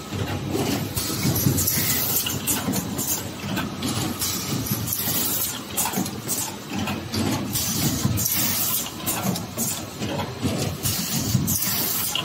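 Two-cavity PET bottle stretch blow moulding machine running, a steady rumble with repeated short hisses and clatter from its pneumatic blowing station.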